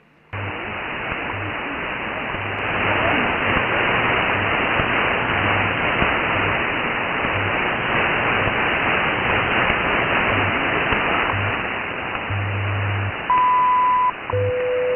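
WWV time-signal station on 15 MHz, heard through a software-defined radio receiver under heavy hiss. The station's low 100 Hz time-code pulses run through the hiss, with faint second ticks. Near the end the top-of-the-minute 1000 Hz tone sounds for under a second, and a steady 500 Hz tone follows.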